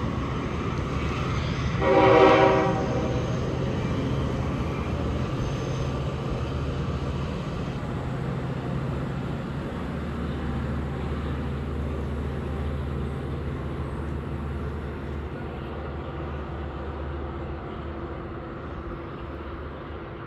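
Diesel locomotive horn sounding one short blast about two seconds in, just after an earlier blast dies away. Underneath, the locomotive's diesel engine hums steadily and slowly fades.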